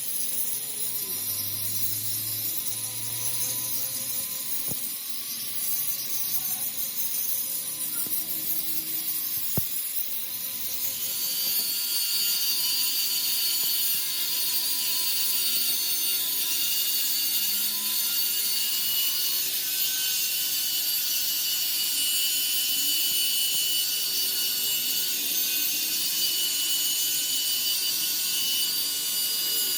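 Steady noise of a power tool or machine working metal, a hiss with high whining tones, growing louder and brighter about a third of the way in and then holding steady.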